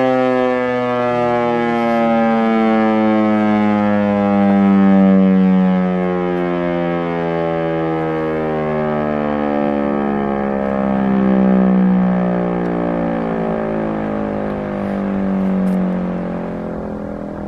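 Federal Signal Eclipse 8 electronic outdoor warning siren winding down at the end of its steady alert tone. A single tone slowly falls in pitch, swelling and fading every few seconds, and grows weaker near the end.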